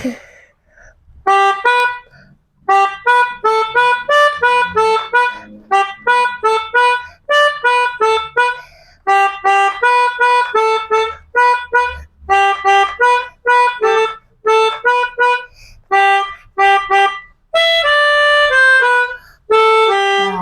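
Pianika (keyboard melodica) playing a quick, bouncy tune of short reedy notes in groups, the 'telolet' bus-horn melody of a Basuri horn. Near the end several notes sound together in a longer held passage.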